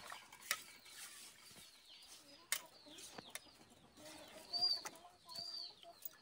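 Chickens clucking faintly, with two short calls in the second half, and a few light clicks.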